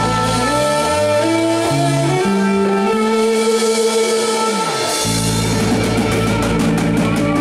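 A live rock band playing: electric guitar over bass guitar and a drum kit, with a quick run of drum strokes near the end.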